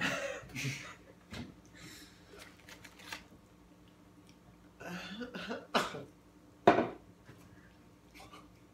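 A man coughing and clearing his throat several times, the two sharpest coughs coming about six and seven seconds in.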